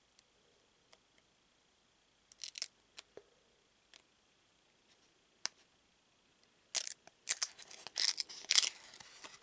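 Stack of glossy trading cards being handled, the cards sliding and flicking against each other with crisp scrapes and snaps: a short scrape about two and a half seconds in, a single snap about halfway, then a quick run of scrapes and snaps near the end as the next card is pulled from the stack.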